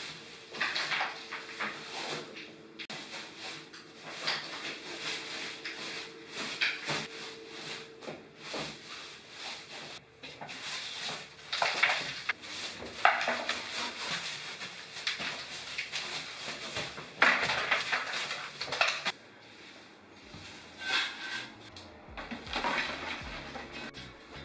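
A broom brushing and scraping over a ceiling and plastered walls in uneven strokes, with knocks and clatters.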